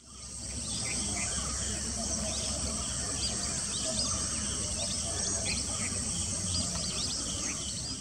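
Outdoor ambience of insects trilling steadily in a dense high band, typical of crickets, with many short bird chirps scattered through it and a low steady rumble underneath. It fades in over about the first second.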